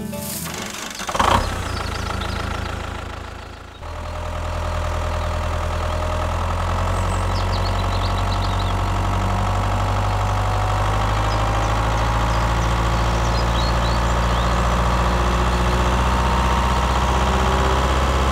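Tractor engine running at a steady pace, a low even drone that sets in about four seconds in. A single short knock comes about a second in.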